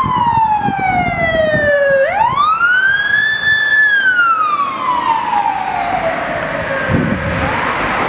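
Emergency-vehicle electronic siren on a lifeguard pickup truck sounding a slow wail: the pitch falls, sweeps up sharply about two seconds in, holds briefly at the top, then falls slowly again. Passing traffic noise runs underneath.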